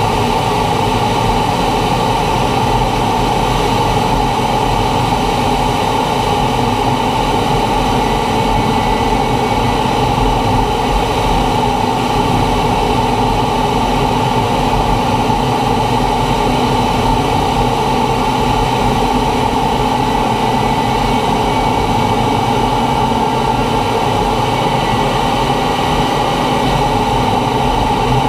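T-45 Goshawk jet trainer in low-level flight: the steady drone of its turbofan engine mixed with rushing air. It is loud and unchanging, with its strongest part in a mid-pitched hum.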